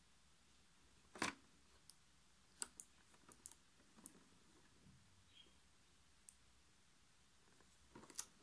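Clear hard-plastic box being handled and turned over: scattered sharp plastic clicks and taps, the loudest about a second in and a small cluster near the end, over near silence.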